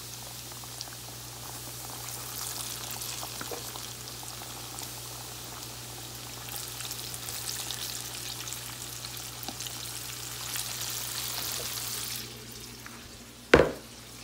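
Pork ribs coated in flour deep frying in hot oil in a pan: a steady sizzling crackle that drops away near the end, followed by a single sharp knock.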